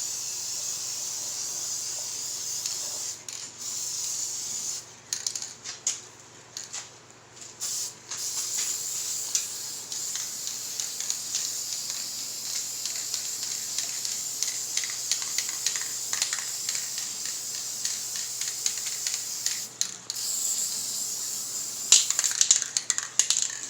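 Aerosol spray paint can spraying in long steady hisses, with several short breaks a few seconds in. Near the end the can is shaken, its mixing ball rattling.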